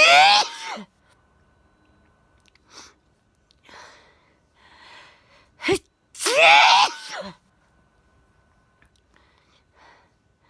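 A woman sneezing loudly twice, about six seconds apart, with softer breathy gasps between the sneezes and a brief sharp sound just before the second.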